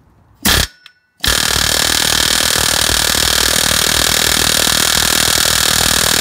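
Pneumatic air hammer: a short burst, then about a second later a steady run of rapid hammering for about five seconds, driving against a stuck rod in the engine's cylinder head that does not come out.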